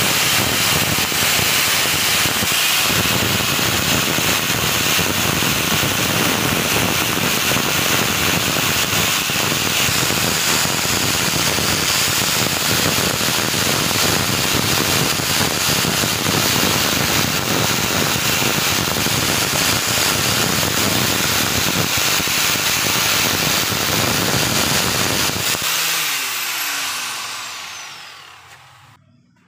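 Rotary power tool grinding and abrading rust off an old steel hacksaw frame, running steadily. Near the end it is switched off and winds down, its pitch falling, until the noise dies away.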